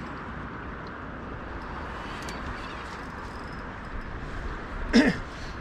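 Steady rushing noise of wind and water around an anchored small boat, with a short voiced exclamation falling in pitch about five seconds in.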